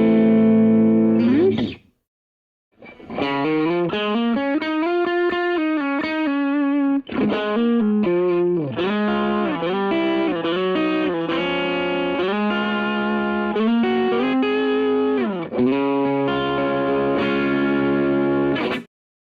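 Telecaster electric guitar played through an amplifier and miked cabinet: a melodic single-note lead phrase with slides and string bends. It stops briefly about two seconds in and again just before the end.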